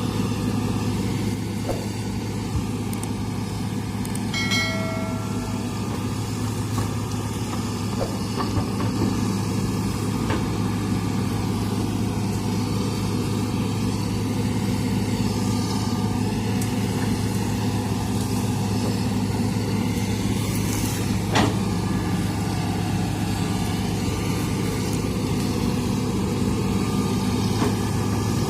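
Hitachi hydraulic excavator's diesel engine running at a steady pitch, with a few sharp cracks and knocks and a brief high squeal about five seconds in.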